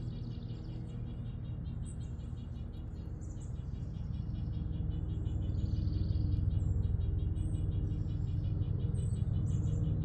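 Small birds chirping in short calls over a steady, rapidly pulsing insect trill, with a low hum underneath that grows louder about halfway through.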